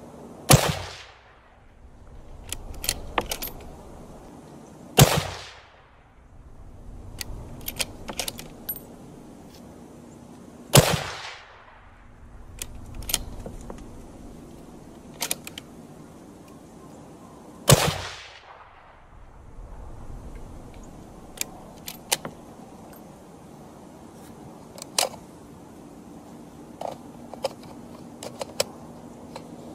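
Four rifle shots, about five to seven seconds apart, each with an echo trailing off for about a second, and smaller metallic clicks from handling the rifle between shots.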